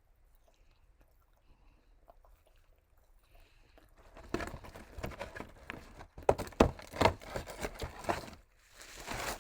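Faint clicking mouth sounds at first, then loud, dense crinkling and rustling of paper fast-food packaging from about four seconds in.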